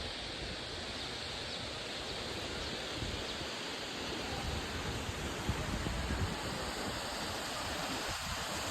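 Steady rushing of a waterfall, with gusts of wind buffeting the microphone.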